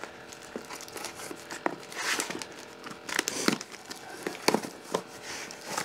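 Cardboard packing being handled and pulled apart: irregular rustling and crinkling with scattered sharp clicks and knocks.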